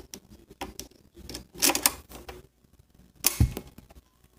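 Hard plastic clicks and clatter from a Paw Patrol toy fire truck's launcher being worked by hand. A louder burst of clicks comes about two seconds in, and a single thump a little after three seconds.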